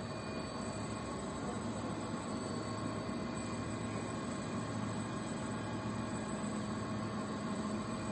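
Steady hum of a running lathe: an even low drone with a faint higher whine over a hiss.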